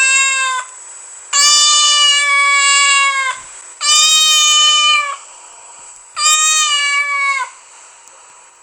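A cat meowing loudly in long, drawn-out meows: the end of one as it opens, then three more, each dropping in pitch as it trails off.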